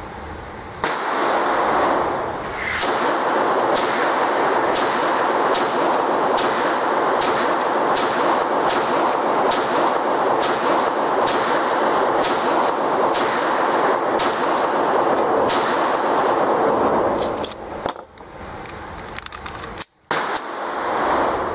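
A rapid string of about two dozen 9mm pistol shots from a Beretta 92FS firing Silver Bear steel-cased ammunition, roughly two a second with a few short pauses, over a continuous loud rushing noise. The firing stops a few seconds before the end.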